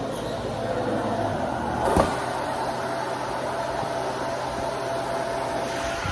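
Dyson Ball Multifloor 2 upright vacuum running steadily, with a single knock about two seconds in.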